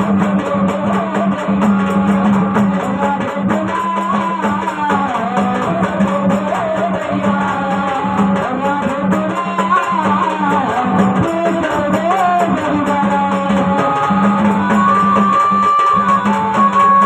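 Live Marathi gavlan folk song played through a PA: a man singing a wavering melody over a steady keyboard drone, with hand-drum accompaniment. Held keyboard notes come in near the end.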